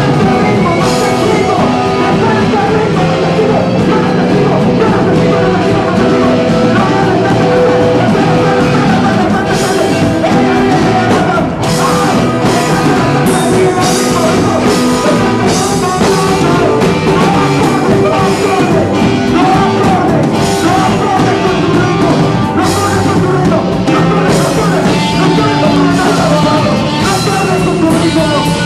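Live band playing loud, dense rock-style noise music, with sustained pitched tones layered throughout. Sharp hits that reach high up, like drums and cymbals, set in about ten seconds in and repeat steadily after that.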